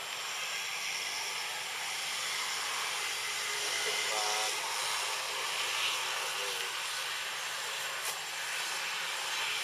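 Steady outdoor hiss of forest ambience, with a faint short wavering call about four seconds in and another weaker one a couple of seconds later.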